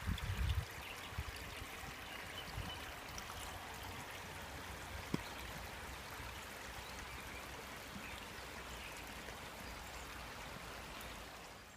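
Steady rain falling, an even hiss of water that holds without a break, with a few low bumps in the first second.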